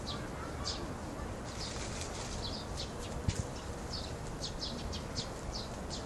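Small birds chirping over and over in short, high notes, several a second, over a steady low background rumble, with one brief low thump a little past three seconds in.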